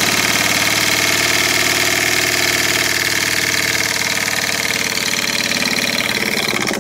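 Jensen Model 55 toy steam engine running fast and steady: a rapid, even chuffing of exhaust steam with light mechanical clatter. It runs very smoothly, freed from its former locked-up state.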